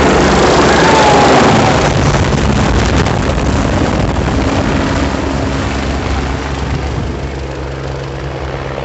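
Helicopter taking off and climbing away: steady rotor and turbine noise, loudest at first and fading as it draws off into the distance.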